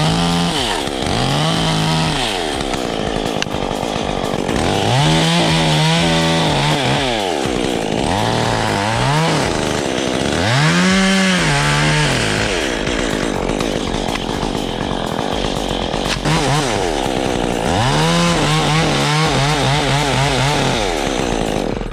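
Petrol chainsaw running loud, its engine pitch rising and falling several times as the throttle is opened and eased off during tree cutting.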